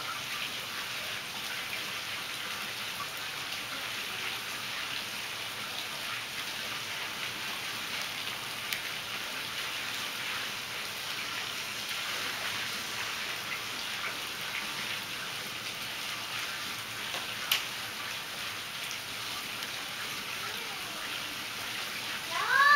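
Steady splashing hiss of water falling from the raised spa into the pool, with a single sharp click near the end.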